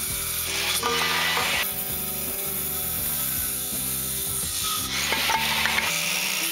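Corded circular saw cutting through a 2x4 in bouts, the cutting noise strongest about a second in and again near the end, with background music underneath.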